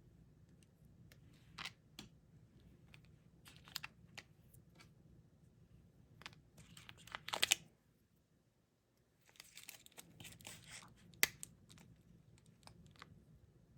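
Faint crinkling and clicking of plastic candy packaging being handled, in short irregular bursts with a brief pause in the middle.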